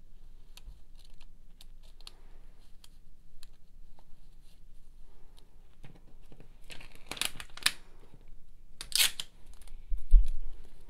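Cut iron-on vinyl pieces on their plastic carrier sheet rustling and crinkling as hands sort through them, with light taps before and two loud crinkles about 7 and 9 seconds in. A low thump just after 10 seconds.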